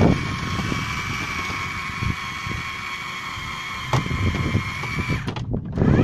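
Electric fishing reel motor winding in line: a steady whine that stops about five seconds in and spins up again with a rising pitch near the end, with a few knocks against the boat.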